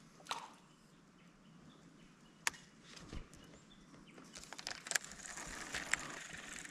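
Faint outdoor ambience broken by a few sharp clicks, with a hiss and more clicks building from about four seconds in.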